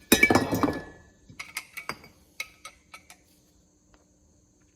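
Metal clatter as a metal part or tool is put down hard, ringing briefly, followed by a series of lighter clinks and taps of metal pieces being handled.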